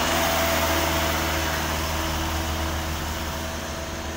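Cargo truck's diesel engine running steadily as it drives past and away, the sound slowly fading.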